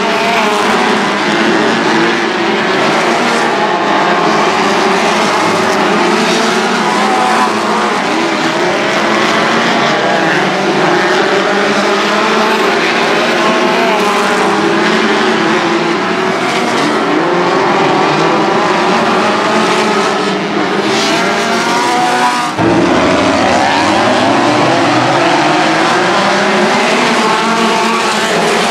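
A pack of race car engines running on the track, several at once, their pitch rising and falling as drivers get on and off the throttle through the turns. The sound changes abruptly about two-thirds of the way through.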